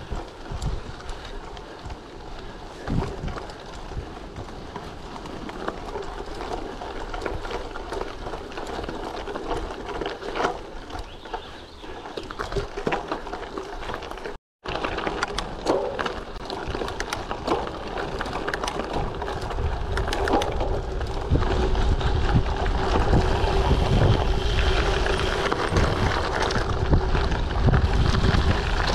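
Giant TCX Pro 1 gravel bike, on 38mm WTB Riddler tyres, ridden over a dirt trail: tyre noise on the ground with frequent small rattles and knocks from the bike. Wind buffets the microphone, growing louder from about two-thirds of the way in. The sound drops out for a moment about halfway.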